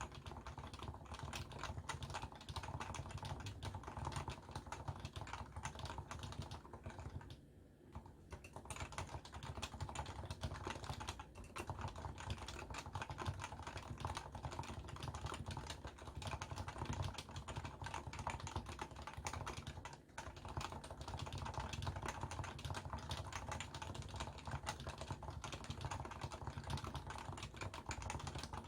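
Continuous fast typing on a Leopold FC660C keyboard with stock, non-silenced 45 g Topre electrostatic capacitive switches: a dense stream of keystrokes with two brief pauses, about a quarter of the way in and about two-thirds in. Picked up through a smartphone's built-in microphone.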